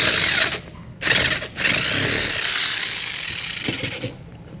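Chicago Electric compact reciprocating saw cutting through a plastic bumper trim piece in three bursts: two short ones, then a run of about two and a half seconds that fades before it stops.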